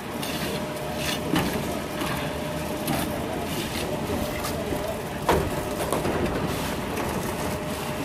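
Concrete mixer engine running steadily, with a few sharp metal clanks, the loudest about five seconds in, as wet concrete is handled.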